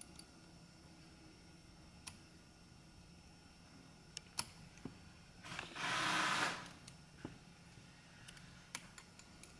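Faint, scattered light clicks and taps of a steel pick tool and needle-nose pliers against an aluminium clutch hub while prying at the wire retaining ring that holds the steel plate. About six seconds in there is a short rushing hiss lasting about a second, the loudest sound.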